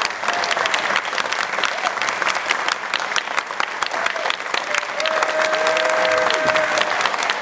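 Audience applauding: dense, steady hand-clapping from a seated crowd. A steady held tone joins faintly about five seconds in.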